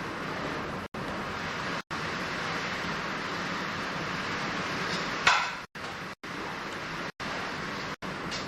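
Steady rushing noise of wind and water on a boat, broken by brief dropouts roughly once a second, with one sudden loud hiss about five seconds in.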